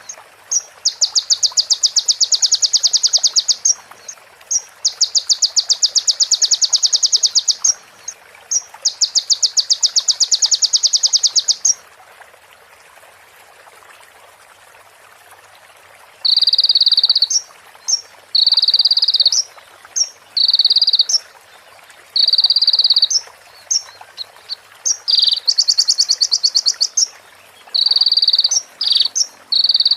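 Small songbird giving very rapid, dry, rattling trills. First come three long phrases of about three seconds each. After a pause with only a steady hiss, shorter phrases of about a second follow in quick succession, with brief chips between them.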